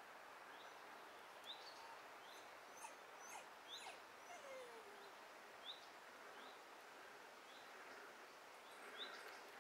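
Near silence: faint outdoor ambience with a small bird's short, high chirps repeating about once a second.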